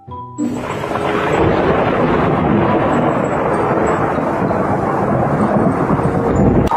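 A few notes of mallet-percussion music give way, about half a second in, to a loud, steady rumbling noise that swells slightly and carries no clear pitch.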